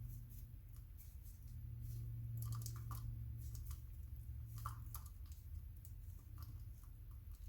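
Faint scraping and small clicks of a metal tool picking at the clay plug and paper tube of a firecracker, over a low steady hum.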